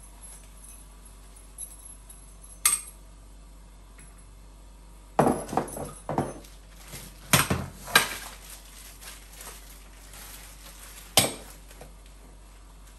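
Metal tubes of a baby jumper's stand clinking and knocking as they are handled, in a series of sharp clinks and knocks: one about three seconds in, a cluster around five to six seconds, two more near eight seconds, and a last one about eleven seconds in.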